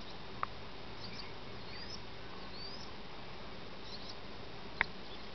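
Garden ambience: a steady hiss with a few faint high, rising chirps in the first half, and two sharp clicks, one about half a second in and one near the end.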